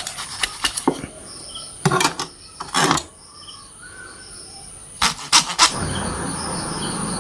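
A knife chopping and cutting raw chicken pieces on a cutting board: scattered knocks and scraping strokes, the loudest about 2 and 3 seconds in and a cluster near 5 seconds. Crickets chirp steadily in the background.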